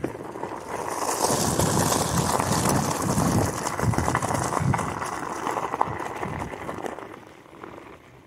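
Kick scooter wheels rolling over loose gravel, a steady crunching noise with irregular low thumps, fading near the end.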